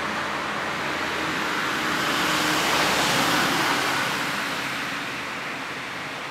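A passing vehicle: a steady rushing noise that swells to a peak about three seconds in, then slowly fades.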